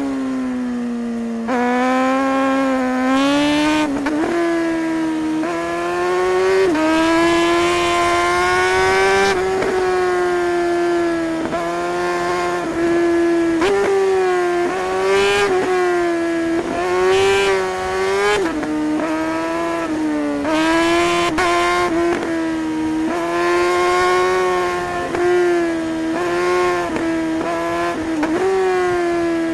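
Suzuki GSR 600's inline-four engine revving hard under load. Its high pitch climbs and then drops sharply every second or two as the rider works the throttle and gears through a run of bends.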